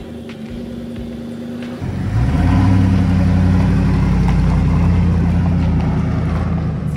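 Ford Econoline van's V8 engine idling, then about two seconds in accelerating as the van pulls away, running louder and steady after that.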